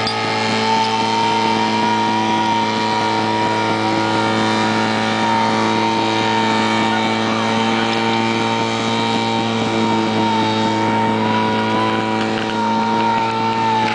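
Portable fire pump engine running steadily at a high, even speed, with a high whine over a lower hum, pushing water through the hose lines.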